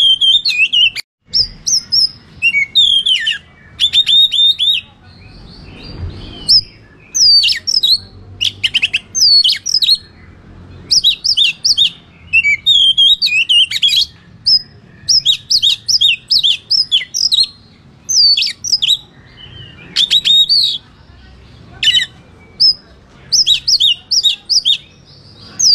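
Oriental magpie-robin (kacer) in full fighting song: a loud, fast string of varied whistles, slurred chirps and quick rattling notes, delivered in short phrases with brief pauses.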